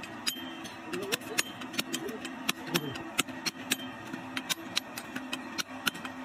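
Metal hammer striking a steel chisel set into a block of Miracema stone, splitting it by hand into thin strips: sharp clinks at about two to three a second.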